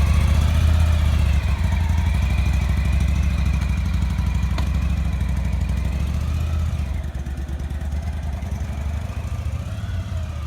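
Motorcycle engine running steadily with an even low rumble, easing off slightly after about seven seconds. There is a single short click about four and a half seconds in.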